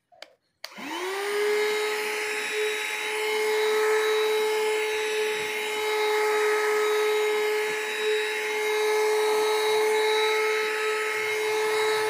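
Youmiai mini cordless handheld vacuum cleaner switched on about a second in: its motor spins up quickly to a steady high whine and runs steadily while suction is drawn over fabric upholstery.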